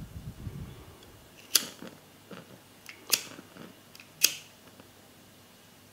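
A disposable lighter clicked three times, about a second and a half apart, with soft handling noise in the first second.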